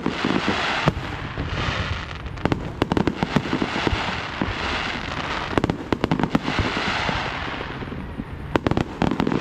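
Fireworks going off: clusters of sharp bangs and pops, with a crackling hiss filling the gaps between them.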